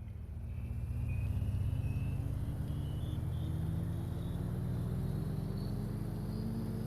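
A bus engine running and pulling away, its pitch rising steadily as it accelerates, with a high whine that climbs along with it. It grows louder over the first second or so and then holds steady.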